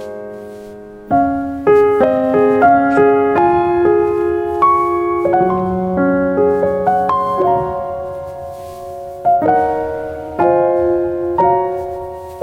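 Gentle solo piano music: soft chords and melody notes struck and left to ring and fade, in an unhurried rhythm.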